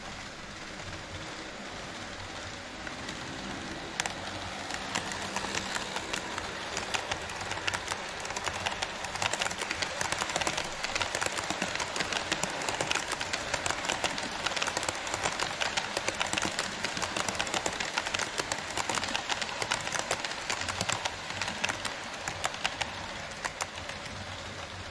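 HO scale model train running on KATO Unitrack, its wheels clicking rapidly over the rail joints above a steady running rush. The clicking grows denser and louder from about four seconds in and thins out again near the end.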